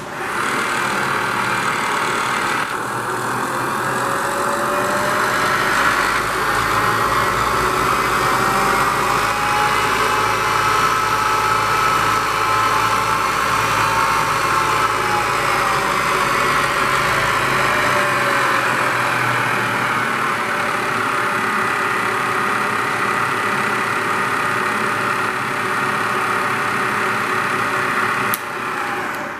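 Bridgeport Series I 2-HP vertical milling machine running, a steady mechanical hum with a whine that rises in pitch through the first half and falls again.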